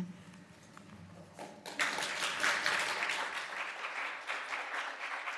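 Audience applauding. The clapping starts about two seconds in after a brief hush and keeps going steadily.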